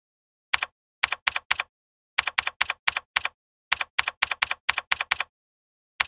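Computer keyboard typing sound effect: quick runs of sharp key clicks, about six or seven a second, broken by short pauses between the runs.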